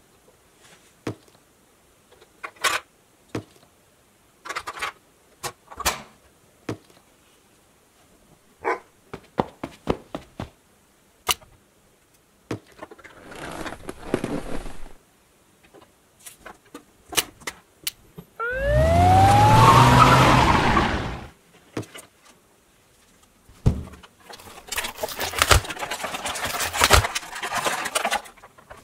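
Light clicks and taps of a plastic toy police car and figure being handled. About 18 seconds in, a loud car-engine revving sound rises in pitch for about three seconds. Near the end comes a stretch of scraping and rattling as a clear plastic box is moved.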